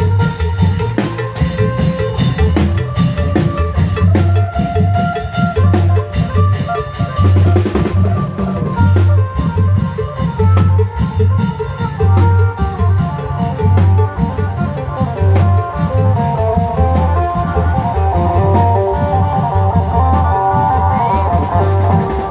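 Isan klong yao long-drum band playing live: deep drum strokes in a steady, repeating rhythm under a phin (Isan lute) melody.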